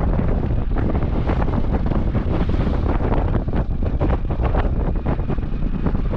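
Wind buffeting the microphone: a loud, steady rumble with irregular gusty pops.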